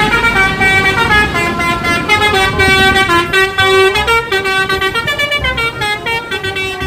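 Bus 'telolet' horn: a set of pitched air horns playing a fast tune, several notes sounding together and changing every fraction of a second.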